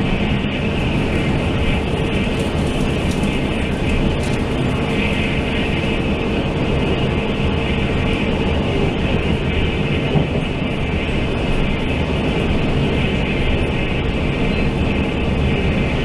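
Interior running noise of a Taiwan Railway Fu-Hsing express passenger coach at speed: a steady rumble of wheels on rail with a constant hum, and one brief knock about ten seconds in.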